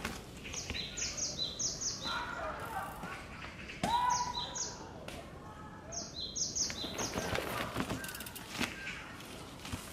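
Woodland birds calling: a high call that steps down in pitch, repeated in three quick groups, with a brief steady whistle about four seconds in. Later, a mountain bike's tyres and frame knock and rattle as it climbs over log steps.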